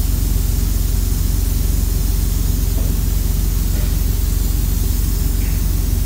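Steady, loud, low mechanical drone with a fast, even pulse and a hiss over it, from running machinery. A few faint small knocks come through about halfway in.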